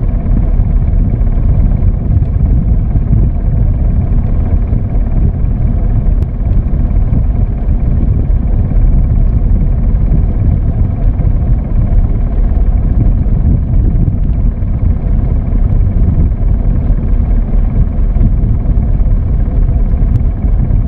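Steady low rumble of a wooden fishing boat's engine running, unbroken throughout.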